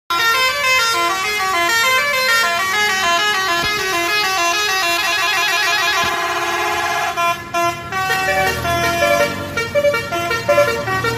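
Bus telolet (basuri) multi-tone horn playing a fast melody of stepping notes, with a longer held passage about six seconds in. After a brief break it sounds shorter, choppier notes, with the bus's engine rumbling underneath from about eight seconds in.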